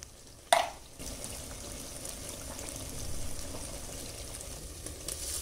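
Potatoes and onions frying in oil in a clay pot, a steady sizzling hiss that starts about a second in, after one sharp knock about half a second in.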